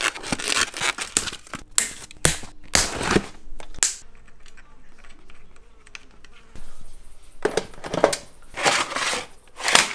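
Polystyrene foam packing and cable ties being cut and pulled off an e-bike: a quick run of sharp snips, snaps and crunches. Quieter handling noise follows, then more rustling and knocks near the end.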